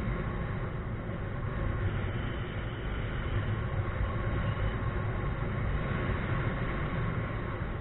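Wind rushing over the microphone of a camera carried in flight on a paraglider: a steady low rumble that does not let up.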